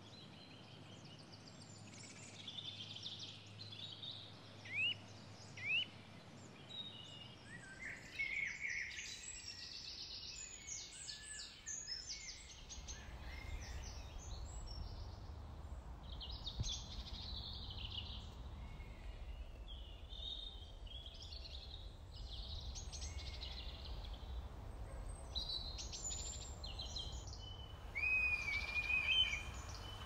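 Birdsong from several small birds chirping and trilling, with a louder call near the end. A steady low rumble runs underneath from about halfway.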